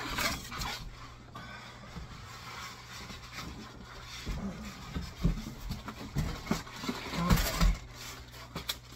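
Plastic wrapping rustling and cardboard scraping as a heavy subwoofer is lifted out of its shipping box, with a few dull thumps in the second half. A steady low hum runs underneath.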